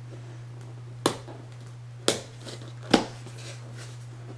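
Three sharp clicks about a second apart as a cardboard retail box is worked open by hand, over a steady low hum.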